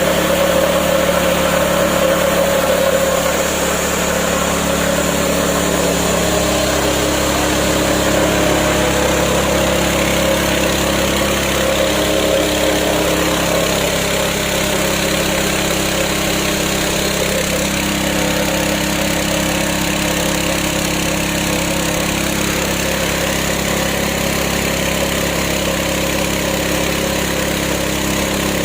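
Electric-driven Yasuka mini rice mill running steadily with rice going through: a continuous motor and milling hum over a hiss of grain, its pitch shifting slightly about six seconds in.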